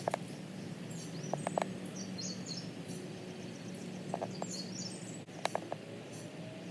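Small birds chirping in short calls over a faint steady low hum, with a few light clicks about a second and a half in and again near the end.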